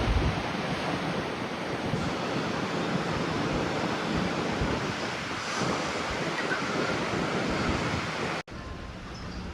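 Strong wind gusting over the microphone: a steady rushing noise with an uneven low rumble. It drops off suddenly near the end to a quieter hiss.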